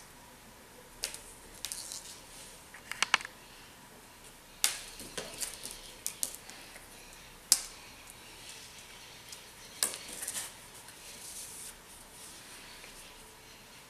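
Irregular sharp clicks and taps on a glazed tile floor as a cat pounces on and bats a cord toy, its claws and the knotted cord striking the tiles. The taps come singly and in quick little clusters, with quiet gaps between.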